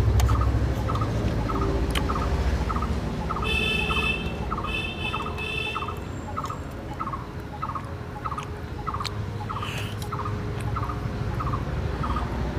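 A bird calling one short note over and over, about twice a second at a steady pitch. Between about three and a half and six seconds in, another bird gives two brief, high chirping trills, and a low rumble dies away in the first second.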